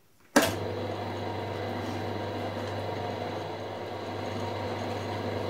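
Milling machine switched on with a sharp click about half a second in, then its motor and spindle running steadily with a low hum, turning a coaxial indicator around the centre of a rotary table.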